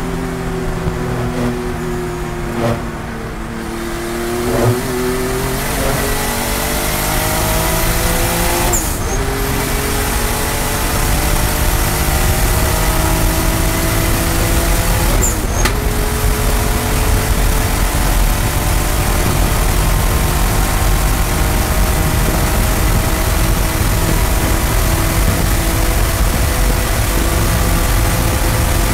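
Porsche 993 GT2 Evo tribute race car's flat-six engine, heard from inside the cockpit, accelerating hard at full throttle. The pitch climbs through the gears with two upshifts, about 9 and 15 seconds in, then holds high revs that rise slowly to the end.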